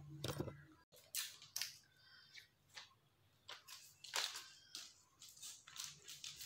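Clear plastic phone packaging being handled and pulled out of a cardboard box: a run of short, irregular crinkles and rustles.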